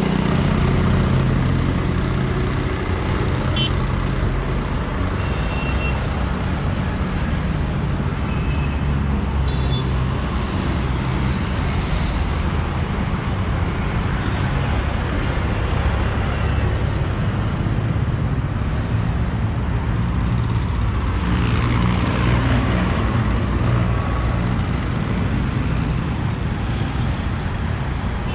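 Road traffic: a heavy diesel truck engine running low and steady at the start, under the continuous noise of passing cars, scooters and auto-rickshaws. A few short high beeps come in the first ten seconds, and a louder vehicle passes a little past two-thirds through.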